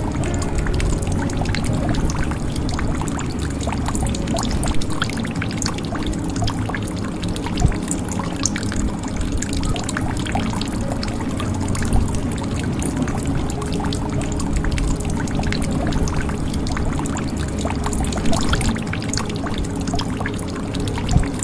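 Water pouring and trickling into a jug in a steady stream, full of small drips and splashes, with a few louder drops standing out now and then.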